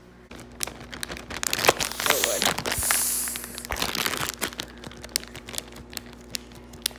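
Plastic zip-top bag of cooked spaghetti crinkling and rustling as it is handled, with many small sharp clicks and crackles of plastic; the rustling is densest a couple of seconds in.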